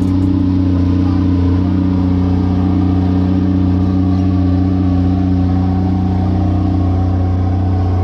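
Heavy diesel engine running at a steady speed, a constant low drone that neither rises nor falls.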